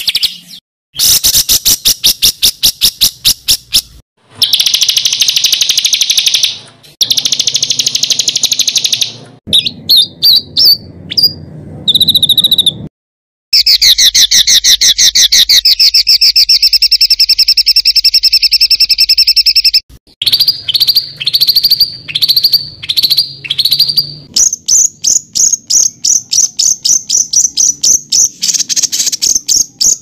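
Songbird song from a masteran tutor recording, harsh rolling material for contest birds to copy: loud, fast trills and runs of rapidly repeated notes, broken by a few short silences between edited phrases.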